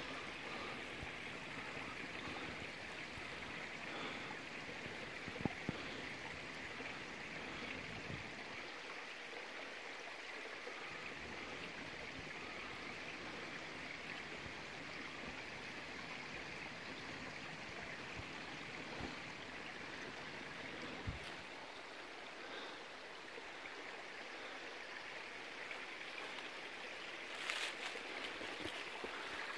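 A small forest stream running over rocks, a faint steady rush of water, with a few light knocks.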